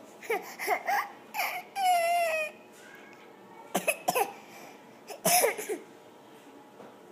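A baby making noises: a run of short squeaks and yelps, a longer falling squeal about two seconds in, then a few cough-like bursts around four and five seconds in.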